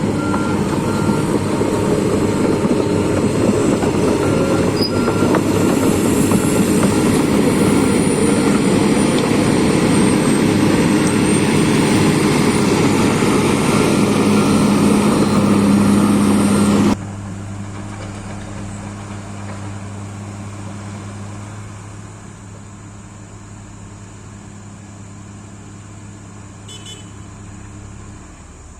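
Heavy diesel machinery running loud, with a reversing alarm beeping over the first few seconds. About two-thirds of the way through, the sound cuts off abruptly to a quieter, steady engine hum.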